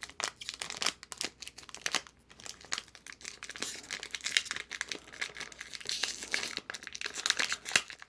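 Foil wrapper of a Pokémon card booster pack crinkling and tearing as it is ripped open by hand, a run of irregular crackles that grows denser in the second half.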